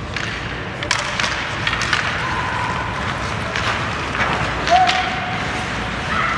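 Ice hockey play: skate blades scraping across the ice with sharp clacks of sticks and puck scattered through, about a dozen knocks in all.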